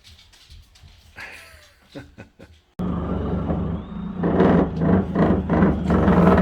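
A few faint knocks and clicks. Then, cutting in abruptly about three seconds in, the loud steady drone of a heavy engine-driven construction machine working with the carpenters outside, with a rapid rhythmic pulsing.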